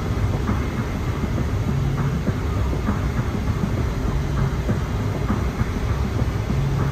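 Road noise inside a moving car's cabin at highway speed: a steady low rumble of tyres on pavement, with faint regular ticks recurring about once or twice a second.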